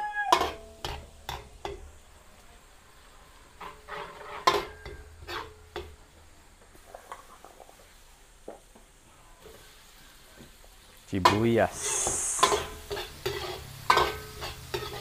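Garlic sautéing in hot oil and margarine in a kawali, with a utensil clicking and scraping against the metal pan as it is stirred. About eleven seconds in, a louder sizzle as onions go into the pan.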